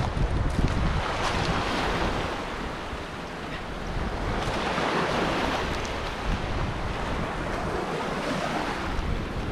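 Sea surf washing in, a steady hiss that swells and eases, peaking about a second in and again about five seconds in, with some wind rumble on the microphone.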